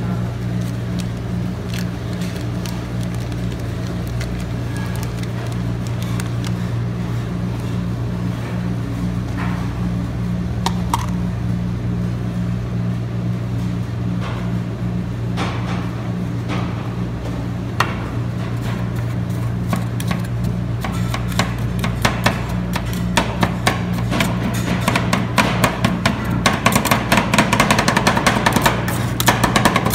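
Metal spatulas tapping and chopping on a rolled-ice-cream cold plate over a steady low hum. The taps are sparse at first and become rapid, continuous clattering in the last third.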